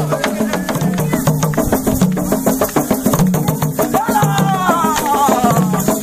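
Live Congolese traditional drumming on a row of tall standing hand drums, a fast, steady dance beat. A high call that slides downward rides over the drums from about four seconds in.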